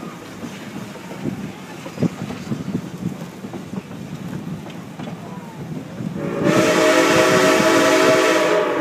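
Narrow-gauge train wheels clattering over the rails, heard from an open passenger car. About six seconds in, the steam locomotive's whistle sounds one long, loud blast.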